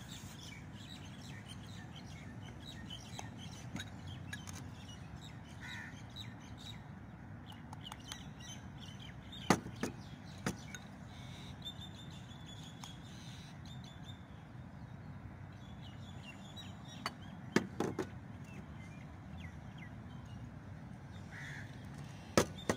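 Birds calling over a steady outdoor background, with sharp clinks of china bowls knocking against each other and the table: a few about ten seconds in, more around seventeen to eighteen seconds, and one near the end.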